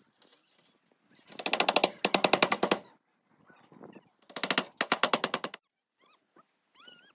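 Two loud bursts of a rapid, even rattle, about a dozen beats a second, each over a second long. A short bird-like call with a bending pitch comes near the end.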